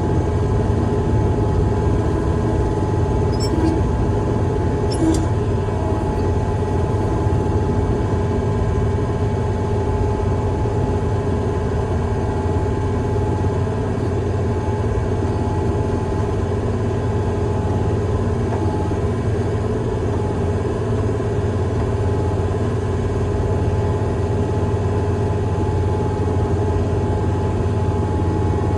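Heavy construction machine's engine running steadily with a constant low drone, with two faint clicks a few seconds in.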